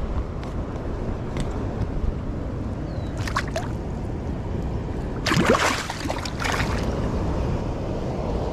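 Water sloshing and splashing as a smallmouth bass is let go back into the river, the loudest splash about five seconds in with a smaller one a couple of seconds earlier, over a steady rushing background.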